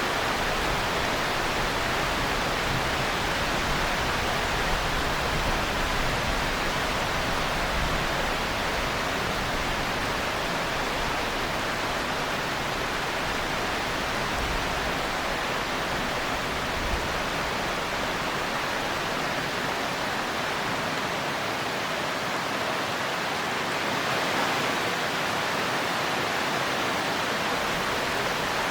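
Steady heavy rain, an even hiss with no separate drops standing out. A faint low rumble underneath dies away about two-thirds of the way through.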